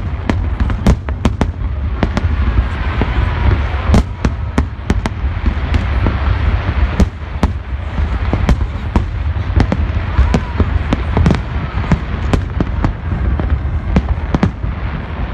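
Aerial firework shells bursting in rapid, irregular succession: many sharp bangs and crackles, several a second, over a constant low rumble.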